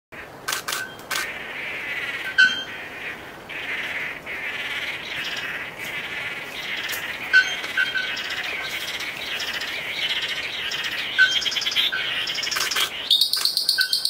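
Blue manakins calling during their dance display: a steady chorus of overlapping chattering calls, with sharp clicks now and then and a fast pulsing trill near the end.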